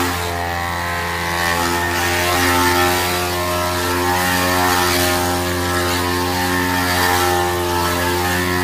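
Handheld electric massager's motor running steadily against the back: a loud, even, buzzing hum whose upper overtones waver slightly as the head is pressed and moved.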